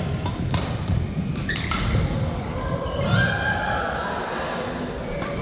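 Badminton play in a large, echoing hall: sharp racket hits on shuttlecocks and heavy footfalls thudding on the court floor.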